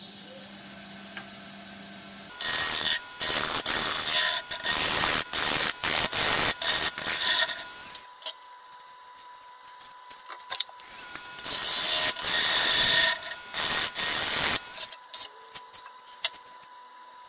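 Wood lathe spinning a walnut blank while a turning tool faces it flat to make a glue surface: loud bursts of cutting hiss, one after another, a pause of a few seconds, then another run of cuts. A steady high whine runs underneath.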